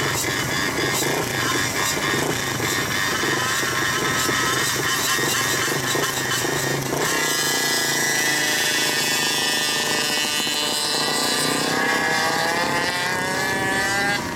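A pack of small two-stroke engines on Go-Ped racing scooters and small motorbikes running on the start line, then revving hard together about seven seconds in as they launch, several pitches rising and overlapping as they pull away.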